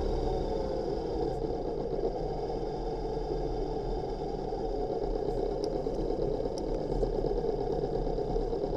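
Motorcycle engine running steadily at low revs as the bike rolls slowly to a stop, an even hum with no revving.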